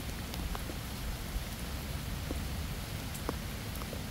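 Steady rain falling, an even hiss with a few separate drops standing out now and then.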